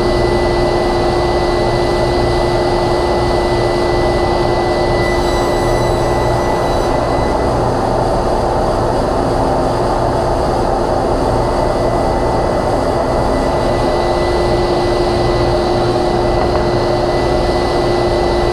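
Table saw and shop dust collector running together: a steady, loud whir with a constant hum and a thin high whine.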